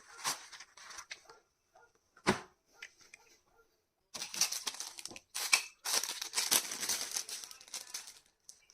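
Plastic packaging being handled and unwrapped: scattered rustles and a sharp click a little over two seconds in, then a long stretch of dense crinkling.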